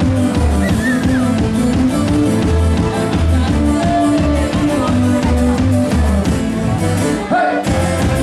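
Live band music with a steady dance beat, guitar over bass and drum kit. The low end drops out briefly near the end.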